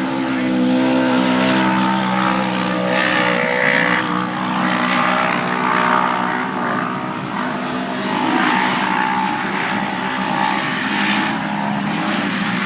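Engines of off-road race vehicles running on the course, several at once, their pitch rising and falling as they rev and pass.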